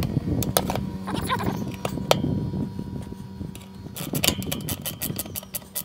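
Ratcheting ring spanner clicking as bolts are driven back into the sheet-metal cover of a mower-conditioner. The clicks come singly at first, then in a quick run of several a second near the end, over a steady low hum.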